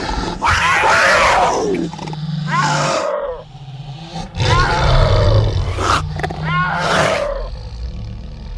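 Big cat roaring, two long bouts with a quieter gap about three seconds in.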